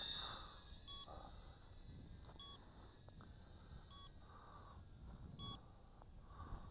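A toy drone's hand-held radio transmitter beeping: four short electronic beeps, evenly spaced about a second and a half apart, over faint background rumble.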